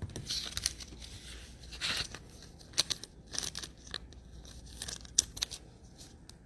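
Hands handling trading cards and their plastic: card sleeves and pack wrappers crinkling, with short tearing rustles and light clicks and taps.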